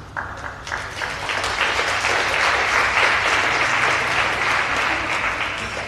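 Audience applauding, swelling over the first two seconds, loudest in the middle and tapering off near the end.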